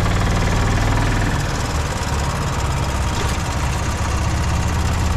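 Golf cart engine running steadily at a low, even pitch as the cart drives along a paved path.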